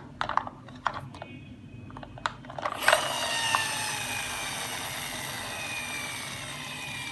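Light clicks of a plastic toy bus being handled, then about three seconds in the toy's geared motor starts whirring and slowly falls in pitch as it runs down.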